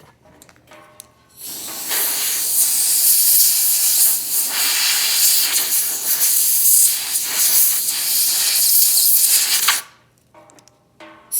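A loud, steady hiss starts about a second and a half in. It cuts off sharply just before ten seconds and starts again just before the end.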